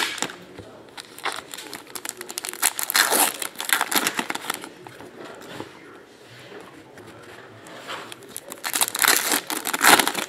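Foil trading card pack wrappers crinkling and tearing in handling, in loud bursts through the first few seconds, a quieter stretch in the middle, and loud crinkling again near the end.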